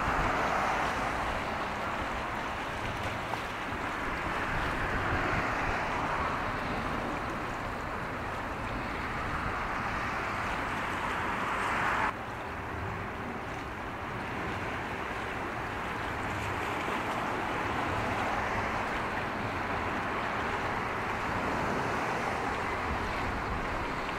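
Steady wash of sea water and wind, with a low hum underneath. The sound drops abruptly at a cut about halfway through.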